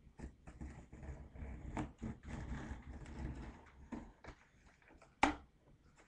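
Cardboard shipping box being handled and its flaps pulled open: rustling and scraping with scattered knocks, and one sharp knock about five seconds in.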